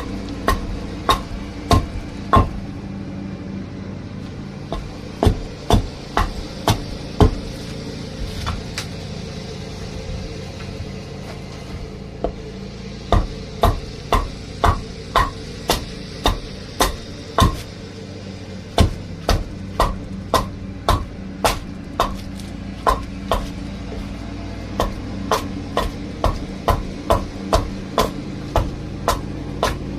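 Repeated sharp strikes of a tool on dried wood being shaped into an axe handle, about one and a half a second, in runs with short pauses, over a steady low hum.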